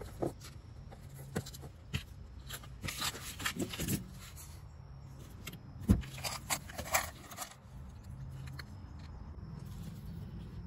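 Scattered handling sounds of work under a car: rustling, scraping and light metallic clinks, with one sharp knock about six seconds in, over a steady low hum.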